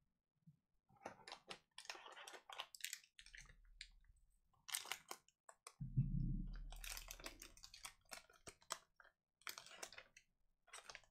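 Faint crinkling and crackling of a Donruss Soccer trading-card pack's plastic wrapper as it is handled and torn open, with a low thump about six seconds in.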